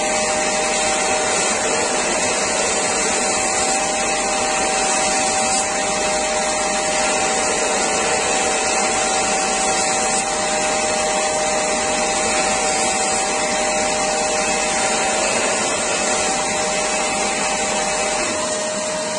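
Parkside PBTS 370 B2 belt and disc sander running steadily on its 370 W induction motor while a strip of wood is held against the moving sanding belt. Near the end one of two steady hums in the noise stops.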